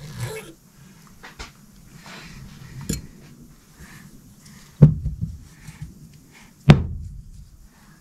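Steel splined transfer-case shafts and small parts handled on a workbench: light clinks and rattles, then two loud metal knocks with a short low ring, about five and seven seconds in.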